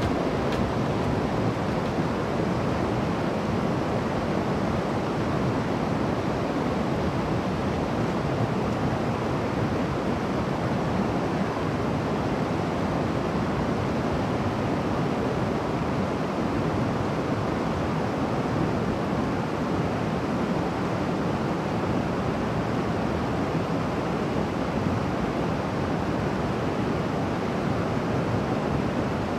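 Steady rush of a mountain river running over rocks and small rapids.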